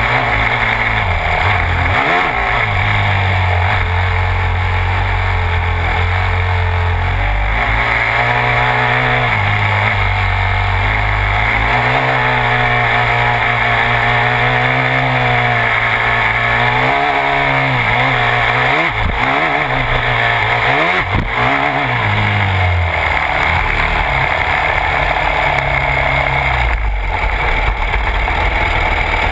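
Yamaha YZ250F's 250 cc single-cylinder four-stroke engine running while the bike is ridden on a dirt trail, its pitch rising and falling with throttle and gear changes. Past the middle come several quick revs and drops, and near the end it settles to a lower, steadier note.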